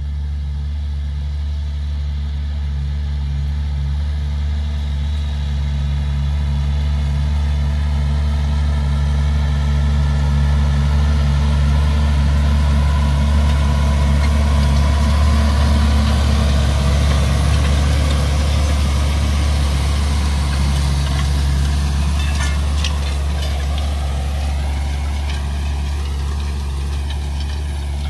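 Large tractor's diesel engine working steadily under load as it pulls a seed drill through dry stubble, growing louder as it passes close about halfway through, then fading as it moves away. A few rattling clicks come near the end.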